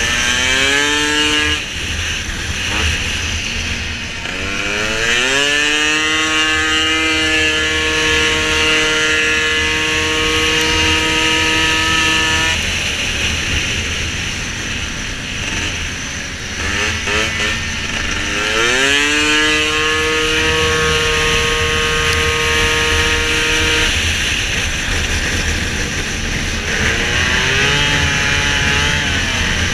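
Piaggio SKR racing scooter engine at full throttle. Twice its pitch climbs steeply, then holds a high steady note, the way a scooter's automatic belt transmission keeps the revs constant while speed builds, and then drops away sharply as the throttle closes. A third climb starts near the end.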